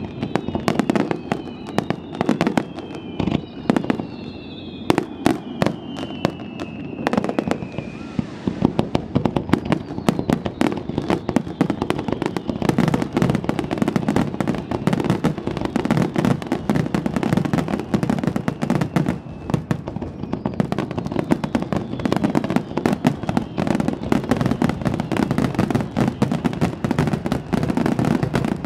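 Wide starmine fireworks barrage: shells launching and bursting in a dense, unbroken string of bangs and crackles. Several falling whistles sound over the first eight seconds or so.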